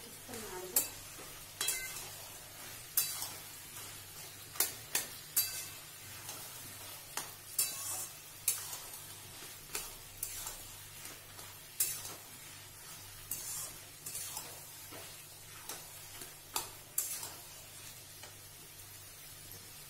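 Flat steel spatula scraping and knocking against a metal wok as a spinach-and-potato dish is stir-fried, with irregular clinks one or two a second over the food sizzling underneath.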